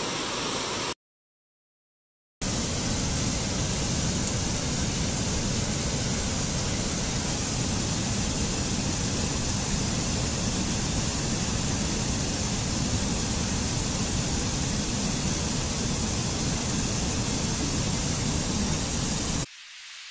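Steady rushing noise of falling water, a waterfall. It cuts out completely about a second in, returns about a second and a half later, and drops away near the end.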